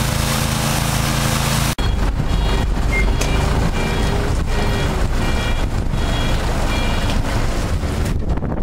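Truck-mounted hot water pressure washer running at full power, its engine humming under a loud high-pressure spray hiss. After a sudden cut about two seconds in, a steady low engine rumble continues with a short electronic beep repeating about every half second until near the end.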